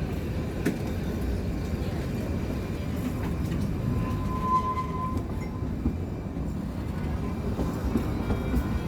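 Kalka–Shimla narrow-gauge toy train running on its track: a steady low rumble and rattle with occasional light clicks, and a brief faint high tone about halfway through.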